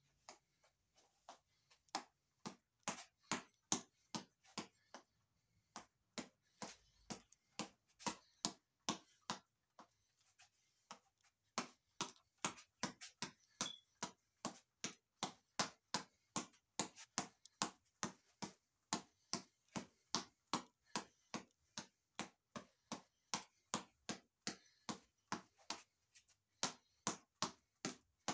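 Boxing reflex ball on a headband elastic being punched over and over: sharp smacks of ball on fist, about two to three a second, with a brief pause about ten seconds in.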